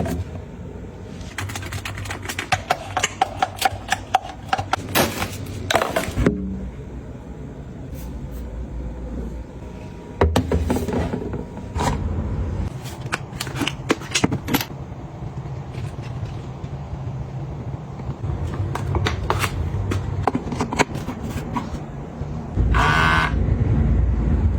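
Close-miked hands handling and setting down containers and packaging: runs of sharp clicks and taps, light scraping and rustling, and a short swish near the end.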